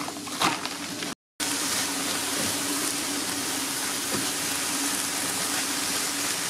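A knife briefly cuts through iceberg lettuce on a cutting board. After a short gap, diced zucchini and red bell pepper sizzle steadily, dry-sautéed without oil in a nonstick pan and stirred now and then with a silicone spatula, with a faint steady hum underneath.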